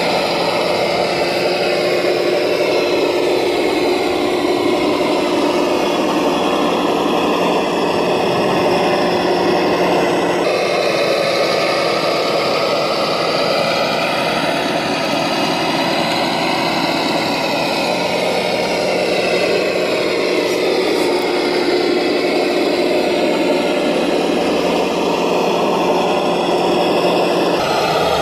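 RC model tractor (MB trac 1800) running steadily as it hauls a loaded trailer over soil, an even engine-like hum. The sound changes abruptly about ten seconds in and again near the end.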